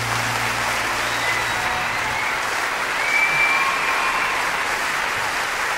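Audience applauding, with a few whistles sliding over the clapping, as the last low piano note of a live song dies away.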